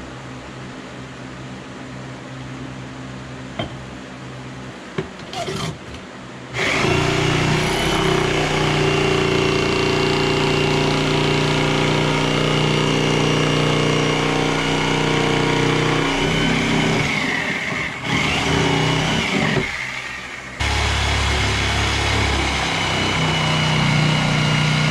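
A few light clicks and knocks, then a power tool motor that starts abruptly about six seconds in and runs steadily, cutting out briefly and starting again about twenty seconds in.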